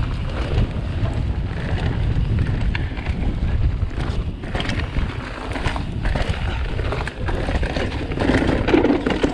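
Wind buffeting the camera microphone with a steady low rumble while a Transition Spire mountain bike rolls fast down a dirt trail, tyres running over the ground and the bike giving scattered clicks and knocks over bumps.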